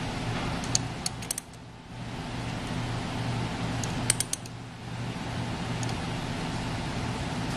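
A wrench clinking against the pump's steel adjusting bolts in two short clusters, about a second in and again about four seconds in, over a steady low hum. The bolts are being turned to back the impeller out to 20 thousandths of clearance from the case.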